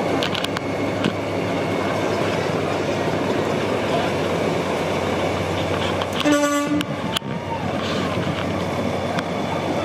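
A semi truck's air horn gives one short blast about six seconds in, over the steady engine rumble of big-rig tractors driving slowly past.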